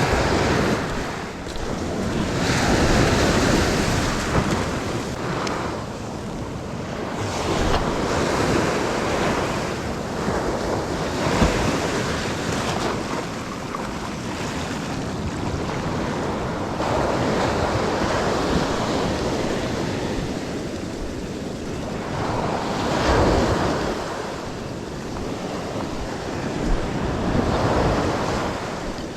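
Sea waves breaking on a sandy surf beach, the wash swelling and fading every few seconds, with wind buffeting the microphone.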